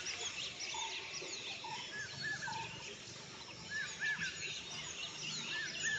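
Wild birds chirping and calling: many short high chirps, and a pair of short arched notes repeated about every two seconds, over faint outdoor background noise.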